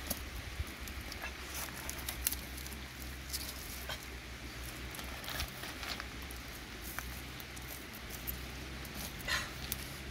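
Small twig fire crackling under a cooking pot: irregular sharp pops and clicks over a steady low rumble.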